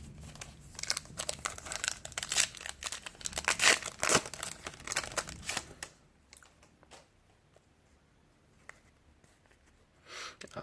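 Foil trading-card pack wrapper being torn open and crinkled, with dense crackling for about six seconds, then near quiet.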